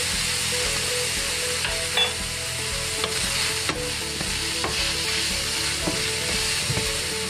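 Flour-dusted strips of veal sizzling in hot clarified butter in a frying pan, with scattered knocks and scrapes of a wooden spatula against the pan as it stirs the meat.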